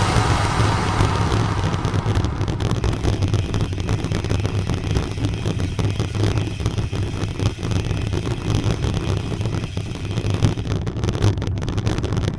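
Wind rumbling and buffeting against the microphone at the seaside, a low, uneven rumble.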